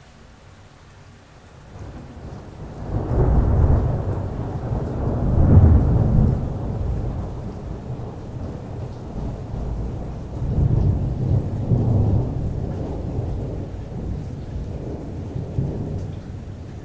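Rolling thunder: a long, low rumble that builds about two seconds in, peaks twice, swells again past the middle and slowly fades, over steady rain.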